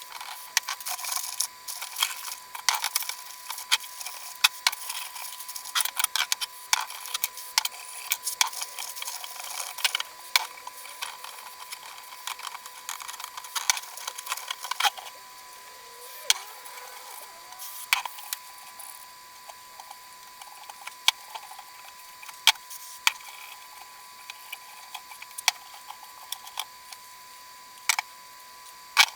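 Sharp clicks and small knocks from hand work on motorcycle parts during cleaning. They come thick and fast for about the first half, then turn sparse and irregular, over a faint steady high tone.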